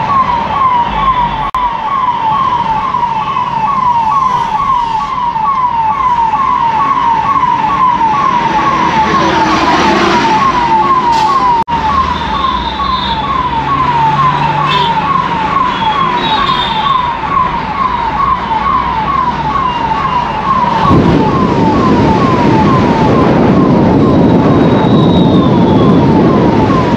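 Police car's electronic siren on a fast yelp, about three short rising whoops a second, heard from inside the car over the engine and traffic. About three-quarters of the way through, loud wind noise on the microphone joins it.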